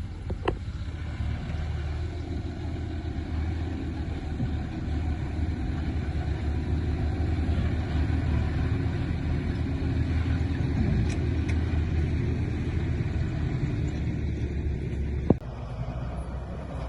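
Diesel engine of heavy earthmoving machinery running steadily, swelling slightly through the middle. A sharp knock comes near the end, after which the engine sound drops lower.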